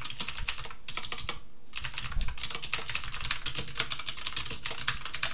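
Typing on a computer keyboard: a run of quick keystrokes with a brief pause about a second and a half in.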